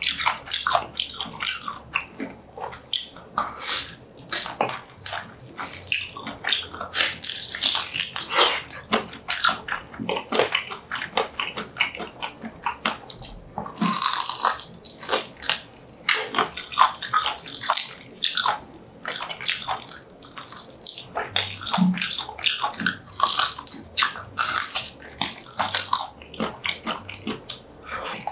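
Close-miked wet chewing and lip-smacking of spicy braised pig's trotters (bul jokbal), a dense, uneven run of sticky clicks and smacks.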